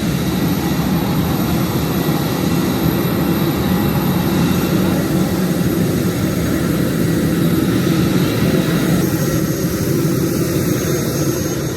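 Jet airliner engine noise: a loud, steady rumble with thin high whining tones over it.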